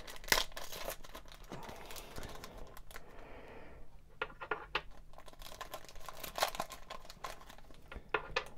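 Foil booster-pack wrapper being torn open and crinkled in the hands, with a sharp tear about a third of a second in, then scattered crinkles and small clicks as the pack and its contents are handled.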